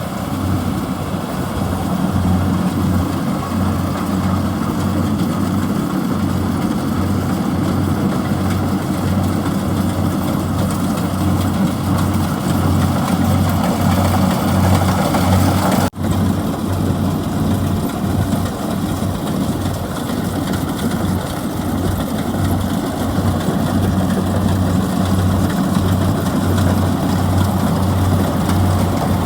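Kubota DC-70G rice combine harvester's diesel engine running steadily, with a low pulsing hum under the clatter of the machine working. The sound breaks off for an instant just past halfway, then carries on.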